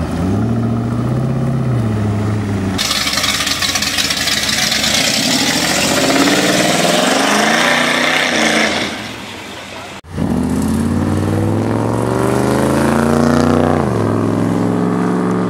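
American V8 engines revving and accelerating, in three short cuts. First a C5 Chevrolet Corvette pulls away with its V8 rising and falling in pitch. A second car accelerates in traffic, and then a late-1960s Ford Mustang accelerates past, its engine pitch climbing steadily before levelling off.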